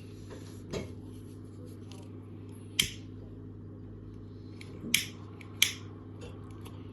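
A few sharp clicks, three of them loud and irregularly spaced, over a steady low hum.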